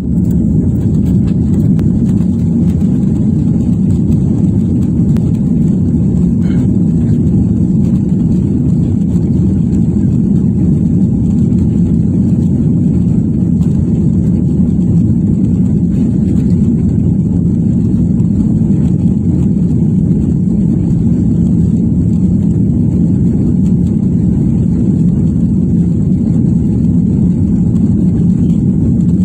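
Steady low rumble inside a jet airliner's cabin as the plane rolls along the ground, its engines running at an even setting with a faint high whine above the rumble.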